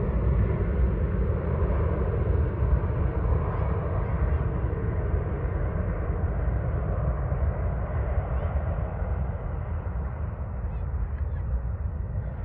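Embraer E175 jet's twin turbofan engines heard from the ground as a deep, steady rumble while the airliner climbs away after takeoff, slowly fading as it recedes.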